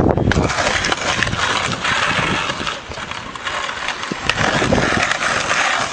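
Skateboard rolling over pavement, the wheels' rough rumble broken by irregular clacks and knocks of the board.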